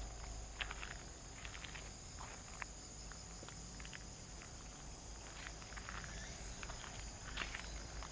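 Footsteps over a steady high-pitched drone of insects such as crickets, with scattered light steps and clicks throughout.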